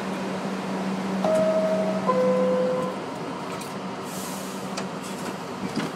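R62A subway car door chime: two descending tones, the second lower, each held just under a second, warning that the doors are about to close. A steady hum runs beneath it and stops about three seconds in, with a few faint clicks near the end.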